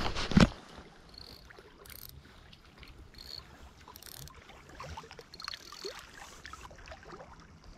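Knocks and rubbing of a hand against the camera in the first half second. Then quieter small waves lapping at the shore, with faint light clicks.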